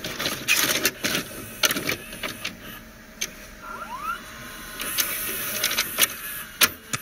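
VCR loading and starting a videocassette: an irregular run of mechanical clunks and clicks over a background of tape hiss, with a short rising whine about halfway through.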